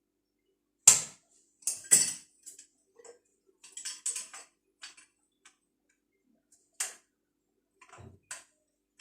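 Irregular clicks and knocks from plumbing pipe fittings being handled and fitted together by hand. The loudest two come about one and two seconds in, followed by scattered lighter taps.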